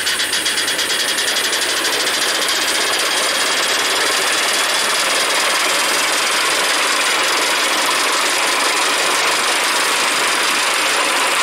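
Simplex 0-6-0 5-inch gauge live steam locomotive running, its exhaust beating rapidly, about six or seven beats a second, the beats blurring into a steady rush after a second or two.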